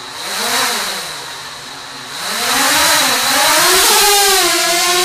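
DJI Mavic Air quadcopter's propellers spinning up for takeoff, a whine whose pitch rises and falls as the motors throttle. It surges briefly about half a second in, then gets louder and higher from about two seconds in as the drone lifts off the table and hovers.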